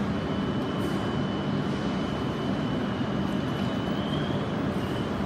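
Steady rushing hum of railway machinery on a Shinkansen station platform, with a thin high whine held on top; no change in level.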